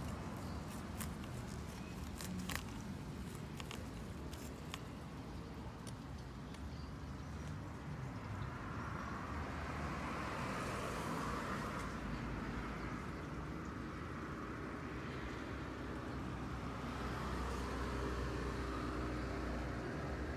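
Outdoor ambience with a steady low rumble: a few light footstep-like clicks at first, then vehicles passing on a nearby road, the noise swelling and fading twice.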